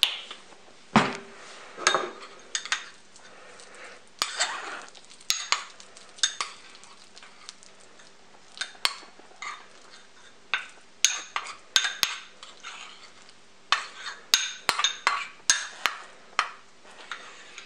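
A metal spoon stirring and scraping crushed garlic and honey in a small ceramic bowl: irregular clinks and scrapes against the bowl, with a quieter stretch in the middle.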